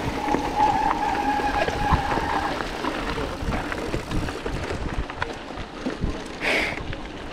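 Scott RC900 mountain bike rolling fast on a gravel road: tyres crunching over loose stones and the bike rattling, with many small clicks. A steady squeal sounds for about two seconds near the start, and a short hiss about six and a half seconds in.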